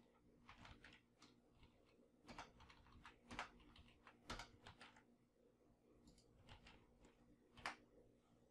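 Faint computer keyboard keystrokes: a scattered handful of separate key presses, with a sharper click near the end.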